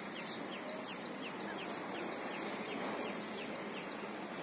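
Insects chirping: a steady high-pitched shrill with a quicker train of short repeating chirps running through it.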